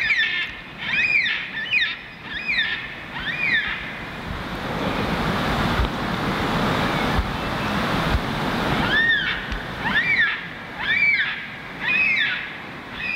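Wind and lapping water, with a gust that swells to its loudest in the middle. Short, high, curved calls repeat about once a second at the start and again near the end.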